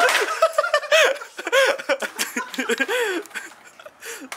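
People laughing and giggling in a string of short rising-and-falling bursts that die away about three seconds in.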